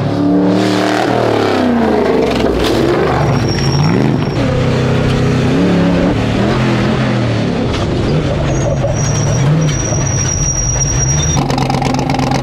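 Off-road prerunner truck engine revving hard, its pitch climbing and dropping several times as the throttle is worked. A thin high whine comes and goes in the middle.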